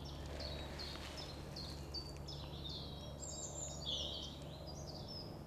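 Birdsong: a small bird repeating short high chirps, about two or three a second, with a busier warbling phrase about three seconds in, over a faint steady low hum.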